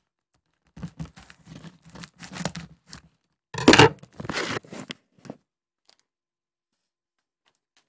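Parcel wrapping being torn and crinkled by hand while the package is opened: a run of rips and rustles, the loudest rip about three and a half seconds in, stopping a little after five seconds in.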